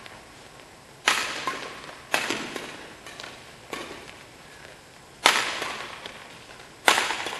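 Badminton rackets striking the shuttlecock in a doubles rally: five sharp cracks, one every one to one and a half seconds, each echoing briefly in the hall. The last two are the loudest.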